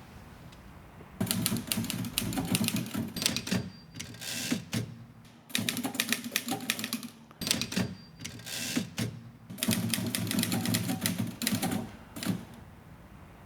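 Typewriter being typed on: rapid runs of key clacks with short pauses between them, starting about a second in and stopping shortly before the end.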